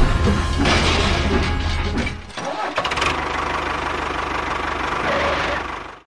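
An engine running, heavy and rumbling for the first two seconds, then lighter and steady, until it cuts off suddenly just before the end.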